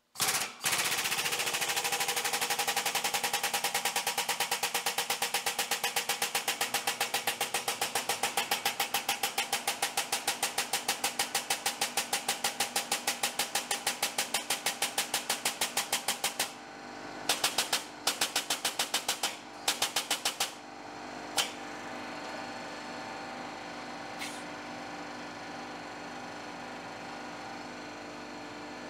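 Air-operated 20-ton hydraulic jack pumping with a fast, even chatter as it drives a finger brake bending quarter-inch steel plate. About halfway through the pumping stops, runs again in two short spurts, then gives way to a steady, quieter hum with a single click or two.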